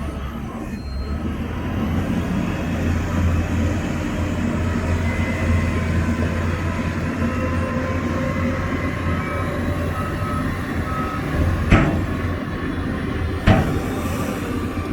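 Komatsu crawler bulldozer's diesel engine running steadily under load, with short metallic squeaks from its moving tracks and two sharp clanks near the end.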